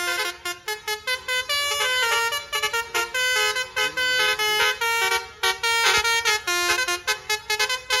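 A tour bus's Basuri telolet multi-trumpet horn playing a fast melody of short, rapidly changing notes.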